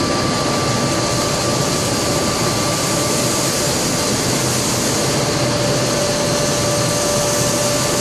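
Aluminium melting furnace in operation: a steady rushing noise from its burner and fans, with a few steady whining tones over it.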